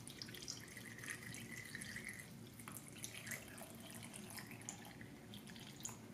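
Milk pouring in a thin stream into a clear 24-ounce blender cup full of frozen fruit: a faint trickling with scattered small clicks.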